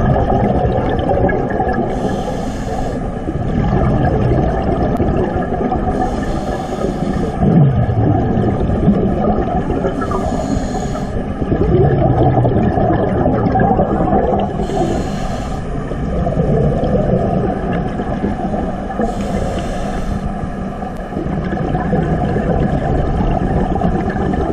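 Scuba diver breathing through a regulator underwater: a short hiss about every four seconds, with the bubbling rumble of exhaled air between them.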